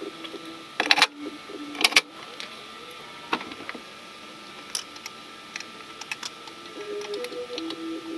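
Hand-tool work on a car door: two loud rattling clatters about one and two seconds in, then scattered light clicks. A soft background melody of stepping notes plays underneath.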